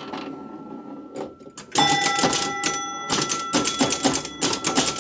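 1969 Gottlieb Airport electromechanical pinball machine in play: a few scattered clicks, then about two seconds in, bursts of rapid relay and score-reel clicking with chime bells ringing over them as points score.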